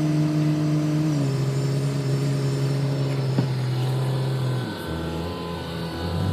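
An engine running steadily, its pitch dropping in steps about a second in and again near the end, with a single click partway through.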